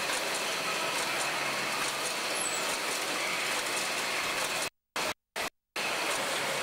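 Steady machine noise from a running packaging line, a rotary turntable feeding packs onto a curved slat-chain conveyor, with no clear rhythm. The sound cuts out completely three times, briefly, near the end.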